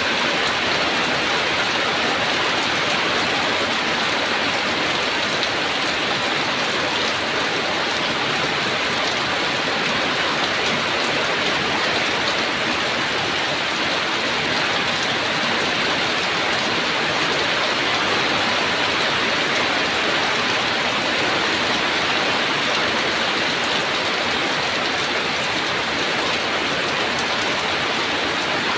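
Heavy rain falling steadily, an even hiss of drops pattering on surfaces with no breaks.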